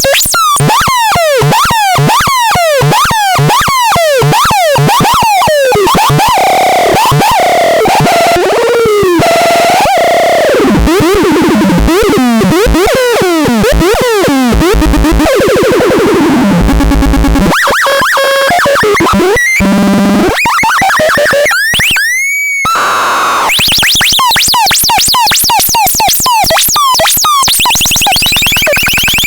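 Electronic synthesizer sound effects. Quick falling and rising pitch sweeps repeat a few times a second, then give way to slower wavering glides. About two-thirds of the way through comes one deep swooping sweep, and the fast sweeps then return.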